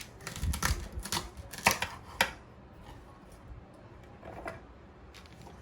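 A quick run of sharp clicks and light knocks from small hard objects being handled, bunched in the first two seconds, then a few faint ticks.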